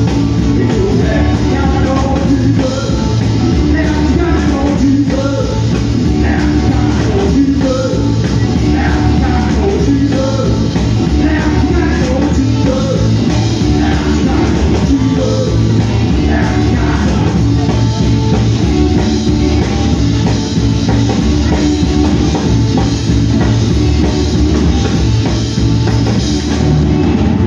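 Live blues-rock band playing loud and without a break: distorted electric guitar over a drum kit.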